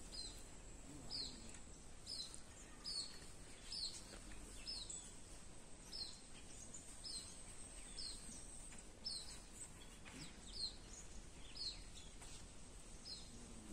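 A bird repeats a short, falling chirp over and over, roughly once a second. Under it runs a faint, steady high-pitched whine.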